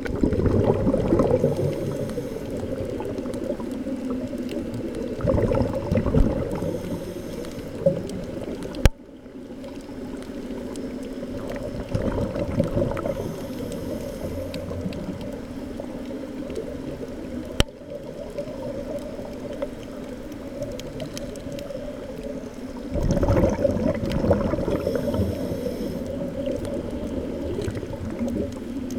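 Muffled underwater sound picked up through a camera's waterproof housing: a steady low rushing and bubbling of water that swells louder several times, with two sharp clicks about nine and eighteen seconds in.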